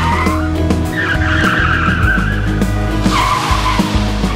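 Car tyres screeching in a hard skid: three long squeals that slide down in pitch, over dramatic background music.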